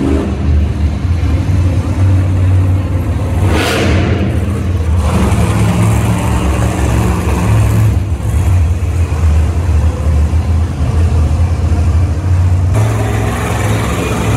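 Monster truck V8 engines revving hard, loud and continuous, as the trucks spin donuts in the dirt. A brief noisy swell comes about four seconds in, and the sound changes abruptly twice, near the middle and near the end.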